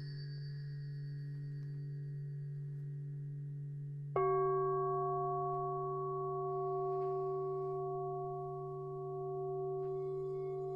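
Singing bowls ringing in long, steady tones. About four seconds in, a bowl is struck and its ring joins the hum of the others, and a fainter, higher ring comes in near the end.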